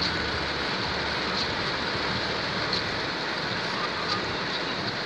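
Heavy rain falling steadily, heard from inside a car through the windshield. A short, faint high tick repeats about every second and a half.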